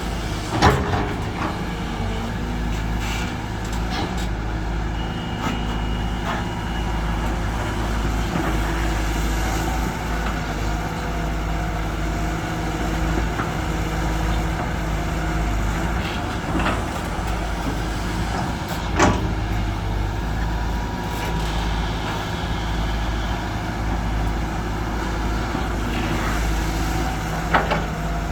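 Heavy diesel engines of an excavator and dump trucks running steadily at an earthworks dig, with a few sharp metallic knocks.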